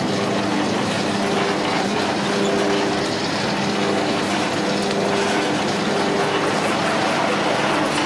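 Spring roll and samosa sheet machine running: steady mechanical noise from its motor, rollers and conveyor belt, with a low hum.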